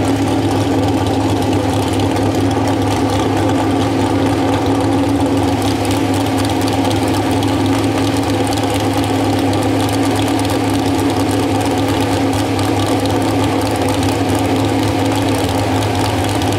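An engine idling steadily, a constant low hum that holds one pitch.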